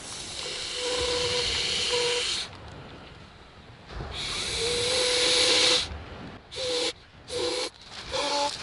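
Mouth-inflating an ultralight nylon/TPU inflatable sleeping pad through its one-way valve: two long exhaled breaths rushing and hissing into the valve, each carrying a steady tone, then three quicker, shorter puffs near the end.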